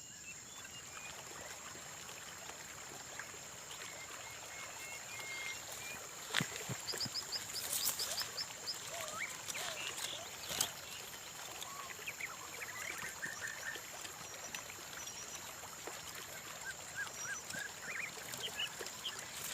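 Small birds calling with short high chirps and quick runs of trills, over a steady high-pitched insect drone, with two sharp clicks, one about six seconds in and one near eleven seconds.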